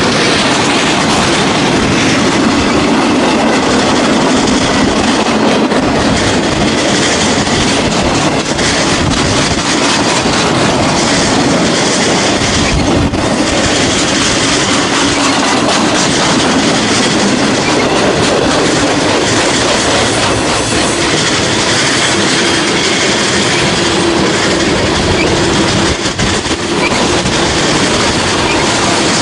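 Freight train cars rolling past close by, a steady loud rumble with the wheels clattering over the rail joints.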